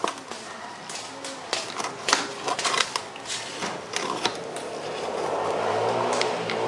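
Metal balls clicking against each other and knocking on a wooden tabletop as they are handled, a quick irregular run of sharp clicks. From about four and a half seconds in, a rushing noise swells up beneath the clicks and stays loud.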